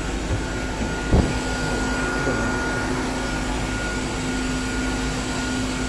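Steady machinery hum: a constant noisy drone with a low steady tone and a fainter higher whine under it. One sharp click about a second in.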